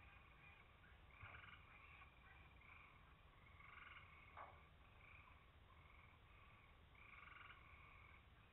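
Faint chorus of frogs trilling, one call after another every second or two, with a single short click about four seconds in.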